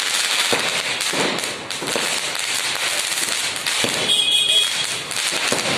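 Diwali firecrackers and fireworks going off continuously: dense crackling with repeated bangs, and a brief whistle about four seconds in.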